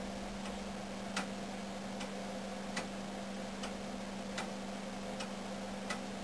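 Iron weight-driven foliot clock (verge escapement, no pendulum) ticking slightly faster than once a second, the beats alternating louder and softer. A steady low hum runs underneath.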